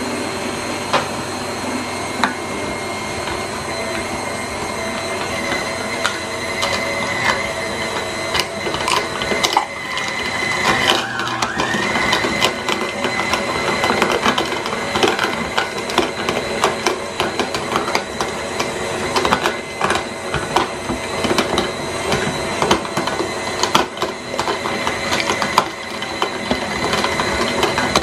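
KitchenAid stand mixer running with its metal meat-grinder attachment, grinding raw bone-in chicken thighs: a steady motor whine with frequent cracks and crunches as the chicken bones go through the grinder. The whine dips briefly about eleven seconds in.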